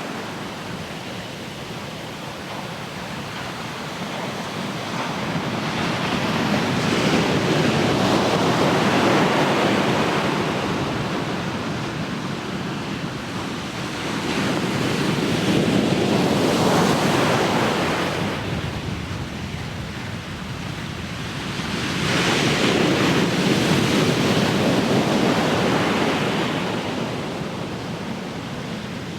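Ocean surf: waves breaking and washing up, the sound swelling and easing off three times as each wave comes in.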